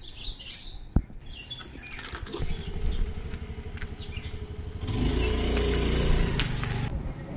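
A sharp click about a second in, then a motor scooter's small engine running from about two seconds in, getting much louder around five seconds as the scooter pulls away past close by. Birds chirp in the first second.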